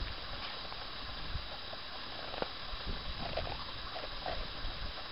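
Wind rumbling on the microphone over a steady hiss, with a few faint crunches in snow from about halfway through.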